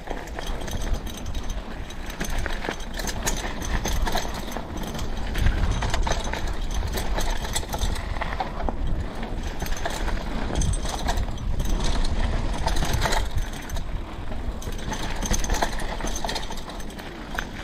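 Mountain bike riding fast down a loose gravel trail: tyres crunching over stones and the bike rattling and clicking over bumps, with wind rumbling on the handlebar camera's microphone.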